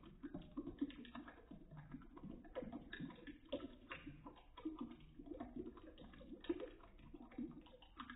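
Thin stream of tap water splashing into a sink basin, heard slowed down with the slow-motion footage, so the splashes come out as a low-pitched, irregular patter of soft plops.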